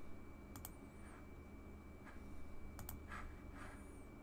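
Computer mouse clicking: two quick pairs of sharp clicks about two seconds apart, over a faint steady electrical hum.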